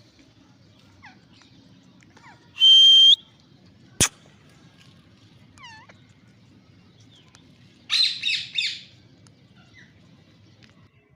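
Green ringneck parrot calling: a loud, shrill screech about two and a half seconds in, faint short chirps, and a burst of three or four harsh squawks near eight seconds. A single sharp click sounds about four seconds in.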